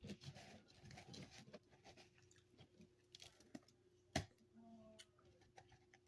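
A mouth chewing crunchy freezer frost: a dense run of small crunches in the first second and a half, then scattered crackles, with one sharp, louder crack a little after four seconds.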